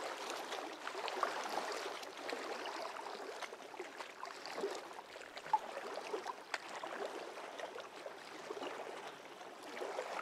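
Water splashing and gurgling, a restless burble broken by small irregular plops and drips.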